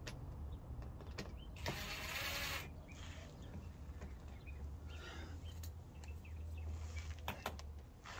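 Hand screwdriver work on the plastic front lip spoiler from underneath: a few sharp clicks near the start and again near the end, and a short rush of noise about two seconds in, over a low steady hum.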